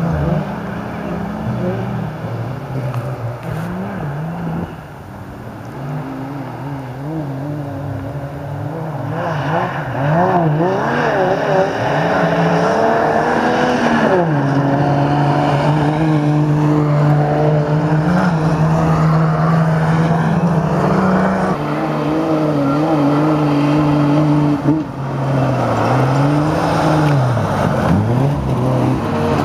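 Engines of GAZ-51 race trucks running hard on a dirt autocross track. The revs climb and fall as the trucks accelerate and change gear, with a stretch of steady high revs in the middle. The sound grows louder as the trucks come closer, about a third of the way in.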